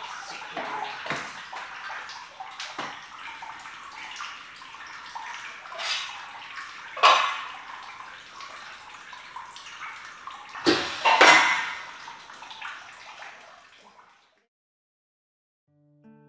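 Plastic cheese molds full of wet curd being turned and set down, with repeated knocks and clatter and the slosh and drip of whey. Several sharp knocks, the loudest about seven and eleven seconds in, as press plates and molds are set down. The sound cuts out a couple of seconds before the end.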